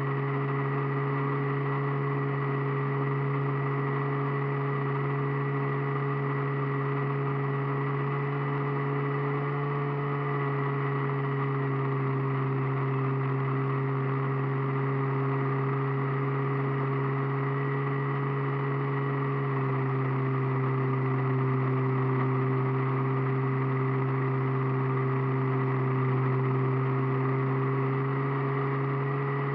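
Radio-controlled airplane's motor and propeller heard from a camera on board, a steady hum over an even rushing noise. The pitch shifts slightly and the sound gets a little louder about 20 seconds in.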